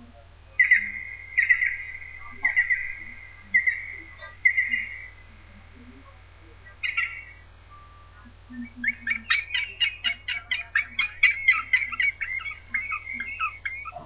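Green woodpecker calling: a few ringing notes about a second apart, a lone note, then a long, fast run of similar notes at about four a second.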